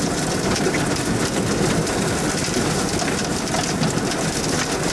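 Heavy wind-driven rain pelting the windshield and body of an armored storm-chase vehicle, heard from inside the cabin as a loud, dense, steady patter. It is the rain-wrapped circulation of a tornado the vehicle is sitting in.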